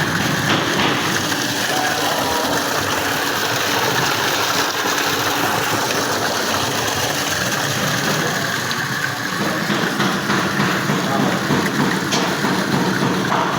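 Water from a garden waterfall, falling and splashing in a steady rush.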